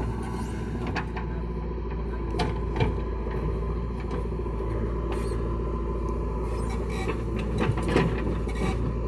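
Diesel engines of a JCB 3DX backhoe loader and a Mahindra tractor running steadily, with scattered knocks and clanks from the digging bucket. A louder thump about eight seconds in as a bucketful of soil is dumped into the tractor's trailer.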